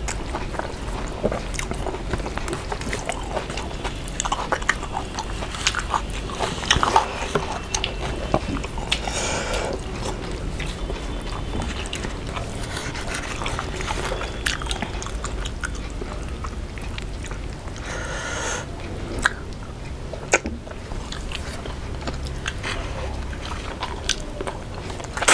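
Close-miked eating of rice and fried fish by hand: chewing and biting, with the squish of fingers mixing rice, and many short sharp clicks and smacks, a few louder than the rest.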